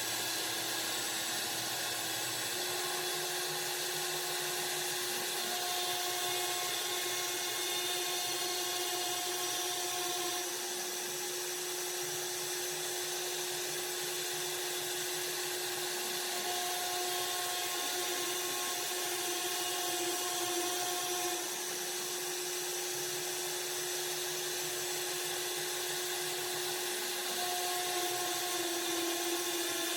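Spindle of a CNC woodworking machine running steadily while it cuts wood: a held high whine over a constant hiss, with small steps in pitch as the cut changes.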